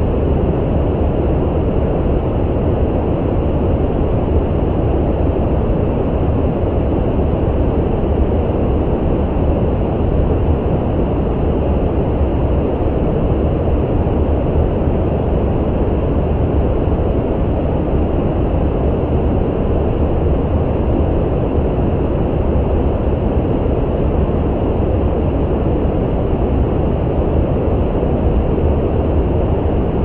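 Brown noise: a steady, deep rushing hiss with no changes, heavy in the bass and dull at the top.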